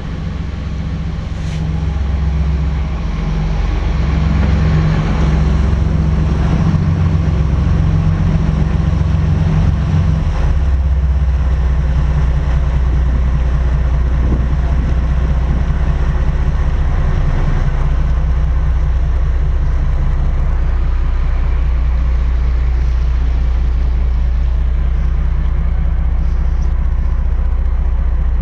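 Twin Cummins QSC 600 hp marine diesel engines driving Hamilton water jets, running at low harbor speed with a steady low drone. The drone grows louder over the first few seconds and then holds steady.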